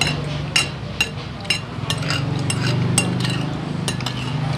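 Metal fork and spoon clinking and scraping against a ceramic plate while scooping up rice, in a string of light clinks about two a second over a steady low hum.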